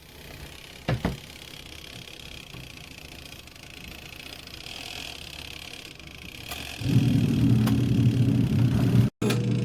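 Portable twin-tub washing machine's motor starting up about seven seconds in and running with a loud, steady hum, after a faint hiss and two light clicks about a second in.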